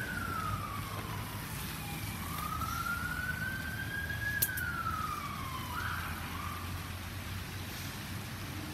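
Ambulance siren on a slow wail, its pitch falling, rising and falling again, over the hum and hiss of traffic on a wet road. A single sharp click comes about four and a half seconds in.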